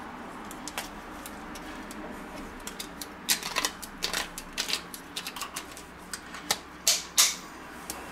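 A metal tube of tomato-pepper paste crinkling and clicking as a hand tube squeezer winds it up to empty it. The clicks are irregular and sharp, sparse at first and coming thickest in the second half, with the loudest near the end.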